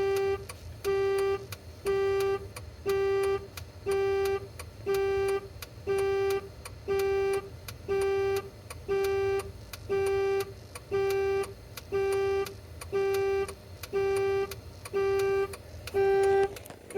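2011 Jeep Wrangler's warning chime beeping steadily, one half-second tone about once a second, during key programming with a key in the ignition.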